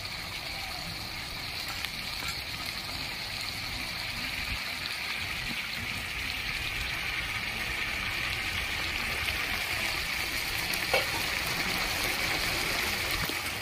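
Kachki fish curry in poppy-seed gravy sizzling and bubbling in the pan: a steady hiss that grows slowly louder.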